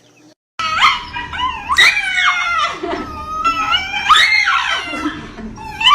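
A dog making a string of long, drawn-out cries that glide up and down in pitch, one after another, starting after a brief silence about half a second in.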